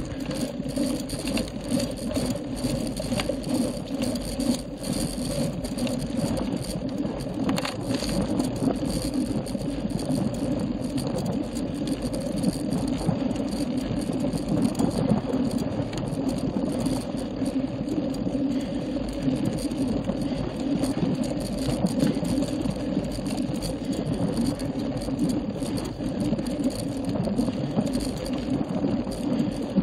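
Road bicycle climbing slowly over rough, worn asphalt: a steady rattle and hum of tyres and frame vibration, picked up by a camera mounted on the handlebars.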